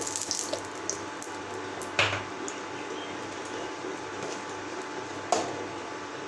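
Ghee sizzling on a hot tawa, a steady hiss, with two sharp knocks about three seconds apart.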